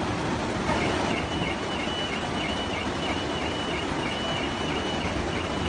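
Floodwater rushing through a street as a steady, even noise. From about a second in, a faint steady high tone with a quick regular beeping just below it sounds over the water.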